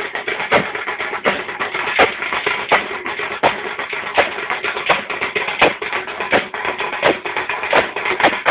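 Loud procession music led by drums, with a sharp stroke about every three-quarters of a second over a dense, continuous wash of sound.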